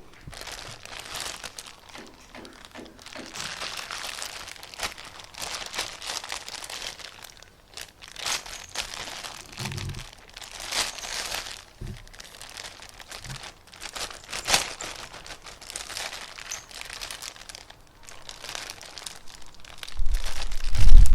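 Crinkly material being crumpled and handled in irregular bursts of crackling. A loud low rumble comes in near the end.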